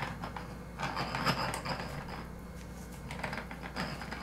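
Handheld mini sewing machine stitching through tent fabric in two short runs, a rapid mechanical clatter with a high whine, about a second in and again near the end.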